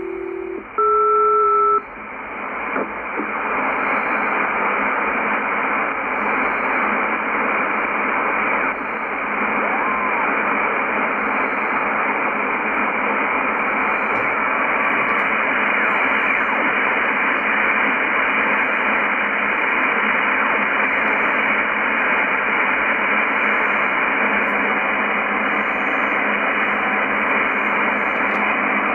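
A two-tone SELCAL call about a second in, one low and one higher steady tone sounding together for about a second, sent over the HF air-traffic frequency. After it comes steady single-sideband receiver hiss from the Yaesu FTdx10 as the dial is turned up across an empty stretch of the shortwave band.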